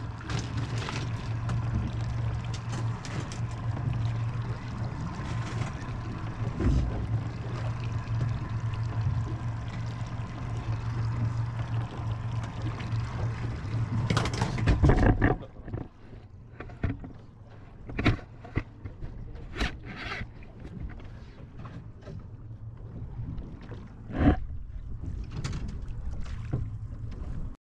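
Boat's Yamaha outboard motor idling steadily under water and wind noise. About fifteen seconds in it drops away suddenly, leaving a quieter bed of water sloshing at the hull with a few short sharp sounds.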